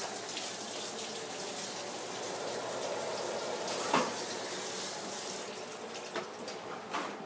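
Kitchen sink tap running steadily while hands are washed under it, with a few short knocks, the loudest about four seconds in.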